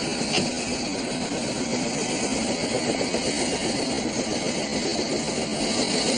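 Aircraft engine running with a steady, even noise, and a short sharp click about half a second in.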